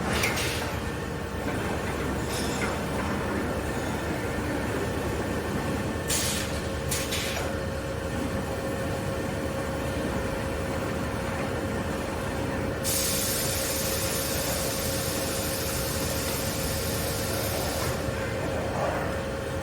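Rebar mesh welding machine running with steady mechanical noise. Short bursts of air hiss come about six and seven seconds in, and a longer hiss lasting about five seconds comes in the second half. A steady hum tone joins about six seconds in.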